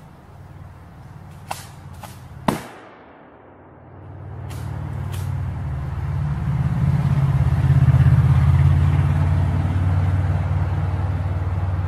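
A single shotgun blast about two and a half seconds in, preceded by two sharp clicks. Then a vehicle's low engine rumble builds from about four seconds, loudest a few seconds later, then easing slightly.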